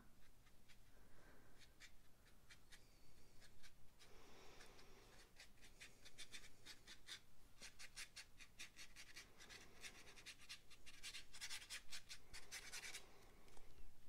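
Faint scratchy dabbing of a paintbrush worked almost dry across watercolor paper in a dry-brush scumbling technique. It comes as quick runs of taps and scrapes, thickest in the second half.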